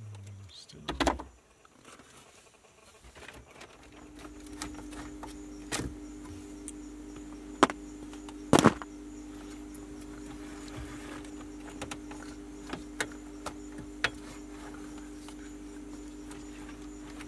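Scattered sharp clicks and knocks from hands working at a Land Rover Defender's dashboard switch panel and wiring, the loudest two close together in the middle. A steady hum comes in about four seconds in and holds under them.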